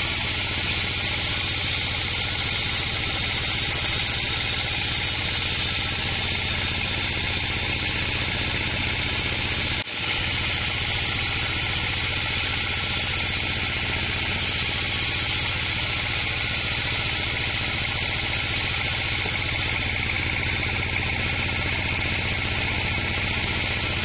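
Band sawmill running steadily as its blade rips a kapok log lengthwise into boards, a constant hiss of cutting over the low hum of the machine, with one very brief drop about ten seconds in.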